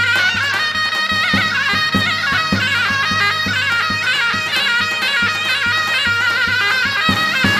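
Traditional folk music: an ornamented melody on a wind instrument over a steady drum beat.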